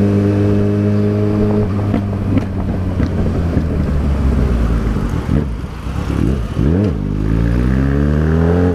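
Yamaha XJ6 motorcycle's 600 cc inline-four engine running under way. It holds steady at first, then the revs wander, blip up and down a couple of times, and climb steadily near the end as it accelerates.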